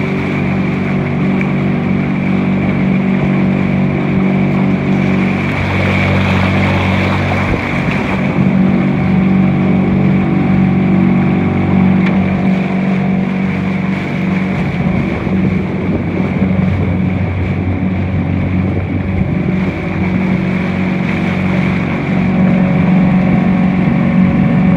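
Outboard motor of a small aluminium boat running steadily at speed, a constant drone, with water rushing past the hull.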